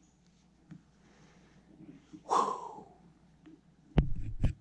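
A man's single loud, breathy exhale, like a snort, about two seconds in, then two sharp knocks with thuds near the end as a hand bumps the camera.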